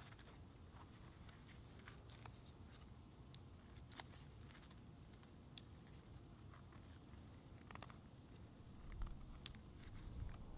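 Faint scattered scraping clicks of a fixed-blade knife shaving slivers off a split stick of wood to make kindling, a little louder near the end.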